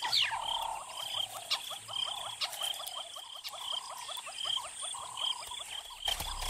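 Nature ambience of small animals calling: a fast, regular run of short, falling calls about five a second, with higher chirps two or three a second above them, thinning out near the end.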